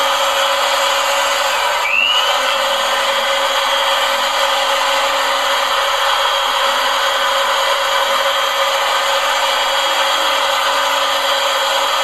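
Jakmister 600-watt handheld electric air blower running at full power, a steady rush of air with a high motor whine as it blows against loose soil. About two seconds in the motor briefly drops and its whine climbs back up to speed.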